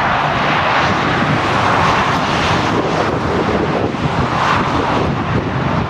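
Piston engines of an Avro Lancaster bomber and two escorting fighters flying past in formation, a steady loud drone, with wind buffeting the microphone.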